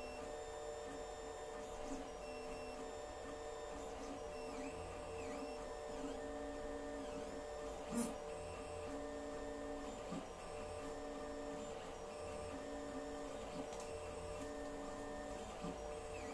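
Alfawise U10 3D printer running a print: its stepper motors whine in short tones that change pitch with each move of the print head, over the steady hum of the hotend cooling fan. One sharp click about halfway through.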